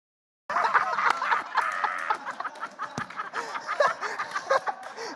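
A group of voices chattering and laughing over one another, starting suddenly about half a second in, with scattered sharp clicks among them.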